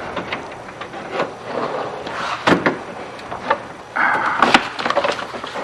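Hand work inside a pickup truck's door: scattered clicks, taps and rattles of tools and metal parts being handled, with one louder knock about two and a half seconds in and a short scrape near the end.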